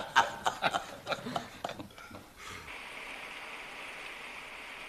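Several men chuckling and laughing for about two seconds. After a brief drop, a steady hiss of running stream water takes over.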